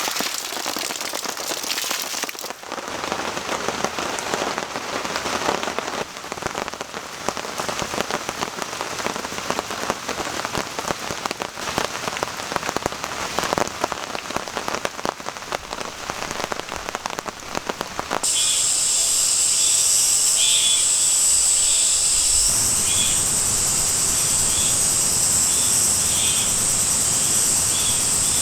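Steady rain falling and pattering on a surface, a dense crackle of drops. About two-thirds of the way in, it cuts abruptly to cicadas singing: a loud, steady high-pitched buzz with calls pulsing at a regular beat beneath it.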